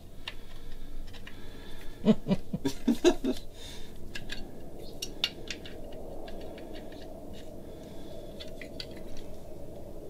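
Small metal clicks and scrapes of hand pliers gripping and working at a tight fastener, with a brief mumble about two to three seconds in. A faint steady hum comes in from about four seconds on.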